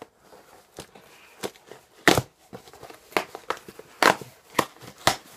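Cardboard shipping box being torn open by hand, without scissors: a run of irregular ripping and crinkling sounds, loudest about two seconds in and again about four seconds in.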